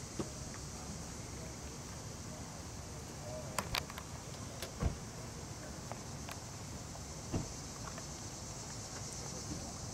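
Steady high-pitched chorus of evening insects, crickets, with a few short clicks and knocks scattered through it, the loudest about halfway through.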